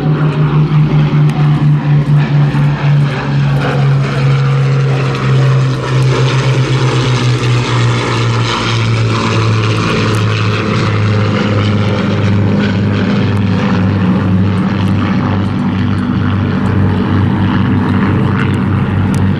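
Avro Lancaster's four Rolls-Royce Merlin V12 engines droning as it flies past. The deep engine note drops in pitch over the first several seconds and then holds steady, with a pulsing beat between the engines at first.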